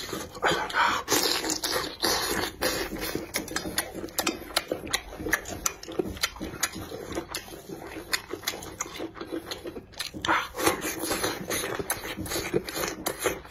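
Close-miked chewing and sucking on chicken feet, a dense run of wet clicks and crackles from skin and cartilage, with louder stretches near the start and about two-thirds through.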